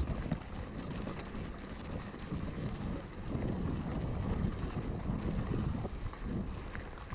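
Wind buffeting an action-camera microphone on a moving mountain bike, over steady rolling noise from the ride with a few small ticks.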